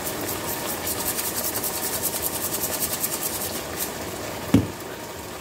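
Seasoning shaker shaken rapidly over a pot of pasta: a fast, even run of rattling ticks for about three and a half seconds, then a single low thump near the end, over a steady soft hiss from the pot.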